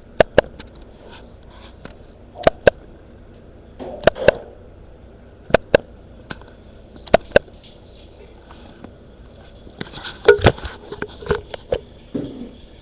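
Laptop giving off sharp clicks when its body is touched, mostly in quick pairs every second or so, then a denser run of clicks and rustling near the end.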